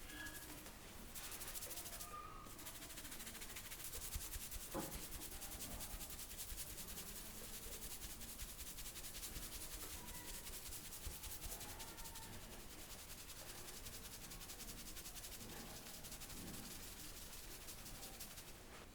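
Barber's hands rubbing briskly over a client's hair and scalp during a head massage: a steady, fast rustling hiss.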